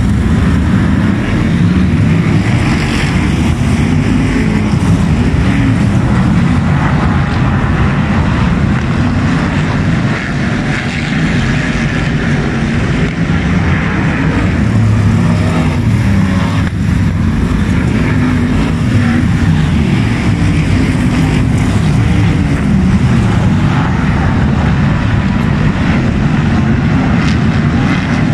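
A pack of F1 stock cars' V8 racing engines running loud and continuously during a race heat, their pitch rising and falling as the cars accelerate and pass.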